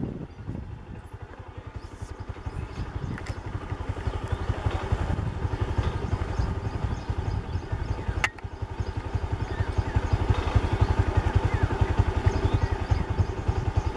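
Motorcycle engine running steadily with a rapid, even putter, growing somewhat louder, with one sharp click about eight seconds in.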